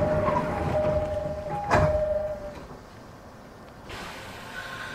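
Door-closing chime of a JR 209-series commuter train, heard inside the car: three two-tone ding-dongs. The sliding doors shut with a thump about two seconds in.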